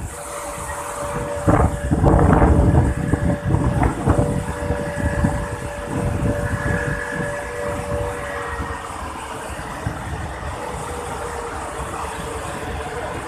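Wind buffeting the microphone in irregular gusts, strongest in the first few seconds, over a steady rushing noise and a faint steady hum that dips slightly in pitch about two-thirds of the way through.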